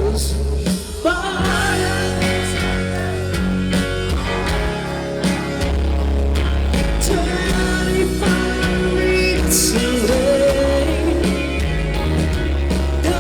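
Rock band music: an instrumental passage between sung lines of a pop-rock ballad, with melodic lead lines over a steady band accompaniment.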